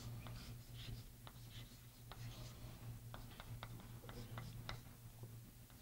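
Chalk writing on a blackboard: faint scratching strokes and many short, sharp taps as the chalk meets the board, over a steady low hum.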